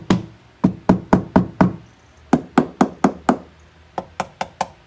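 Knuckles rapping on a bare plastic interior panel of a C7 Corvette Z06, in four quick runs of four or five knocks each, testing how it resonates before sound-deadening mat is applied. The panel sounds really bad, like literally just plastic.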